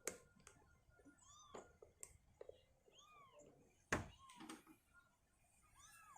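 Young kitten mewing in short, thin, high cries, one every second or so. A dull thump about four seconds in is the loudest sound.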